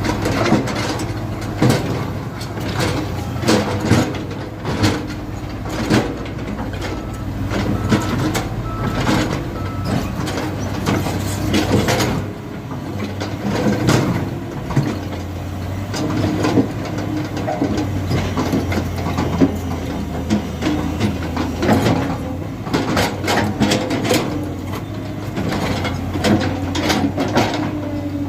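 Diesel engine of heavy earthmoving machinery running steadily, with many sharp knocks and clanks over it.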